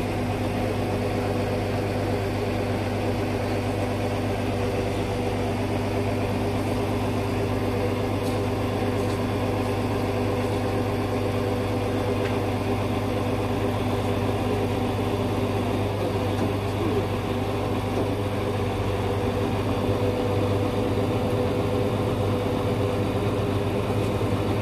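A crane lorry's engine idling steadily, a continuous low hum that holds the same pitch throughout.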